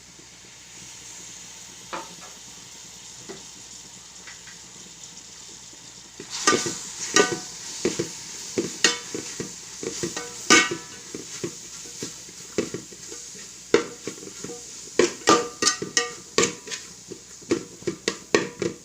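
Vegetables and sauces sizzling in a hot pan, then from about six seconds in a spatula scraping and clacking against the pan many times at an irregular pace as the mixture is stir-fried.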